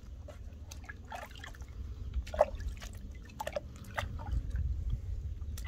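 Water splashing and dripping in a plastic tub as a puppy is washed by hand: scattered small splashes and drips over a low steady rumble.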